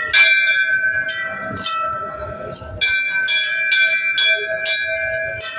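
Hanging brass temple bell struck by hand again and again, each clang ringing on: three strikes, a short pause, then a quicker run of about two strikes a second.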